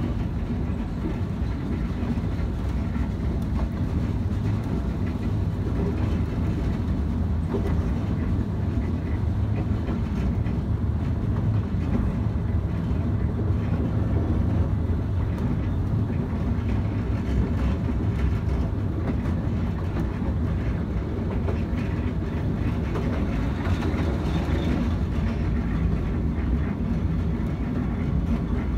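Steady rumble of a 15-inch gauge miniature railway carriage running along the track, heard from on board, with faint clicks of the wheels over the rail joints.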